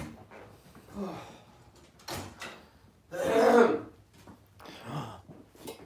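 A few short breathy vocal sounds about a second apart, the loudest a cough-like burst about three seconds in.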